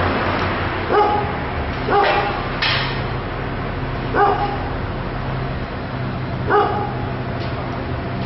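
A dog barking in single short barks, four in all, spaced one to two seconds apart, over a steady low hum.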